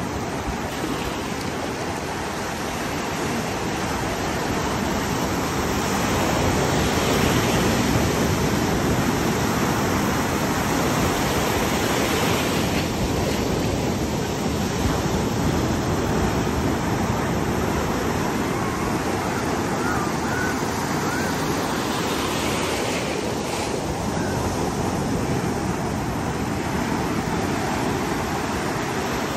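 Ocean surf breaking and washing around the shallows: a steady rush of water that swells a little now and then.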